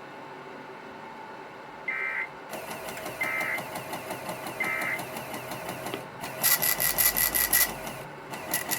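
Three short warbling data bursts of an Emergency Alert System end-of-message signal, which closes the flood-warning alert. From under the second burst a small printer runs in a fast, rhythmic mechanical rattle, louder over the last few seconds.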